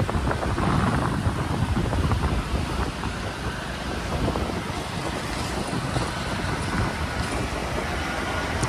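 Steady wind rushing over the microphone and road noise from riding on a moving motorbike or scooter through city traffic.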